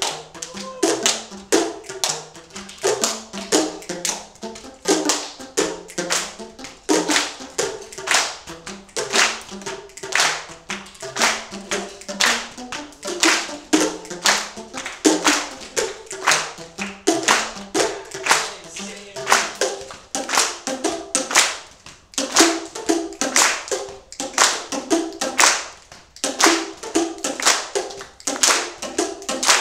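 Boomwhackers, colour-coded plastic tuned percussion tubes, struck in a steady rhythm by a group, each strike sounding a short pitched note so that together they pick out a tune. The playing breaks off briefly twice in the last third.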